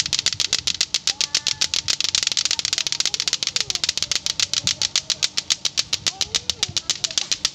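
Lato-lato clackers, plastic balls on strings, several swung at once and knocking together in a steady rapid clacking of about nine knocks a second.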